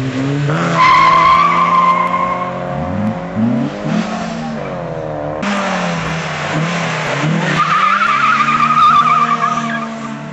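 Two cars launching side by side from a standing start, engines revving hard with their pitch climbing and stepping through gear changes, and tyres squealing for about two seconds on the launch. After a sudden break about halfway, a second pair launches the same way with another wavering tyre squeal.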